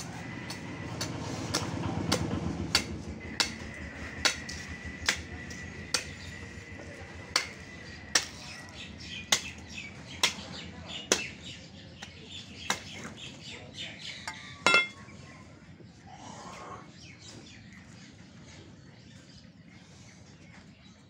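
Repeated sharp knocks, about one a second, of a butcher's knife striking beef ribs and the wooden chopping block while a side of beef is cut up, with a louder ringing clank about fifteen seconds in. The knocks thin out and stop after that.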